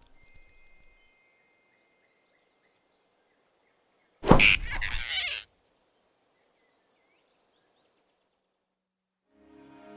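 Animated-film sound effect: one loud, sudden hit about four seconds in, sharp at its start and running on for just over a second before cutting off. It sits between stretches of faint woodland ambience with a few small chirps. Music comes in near the end.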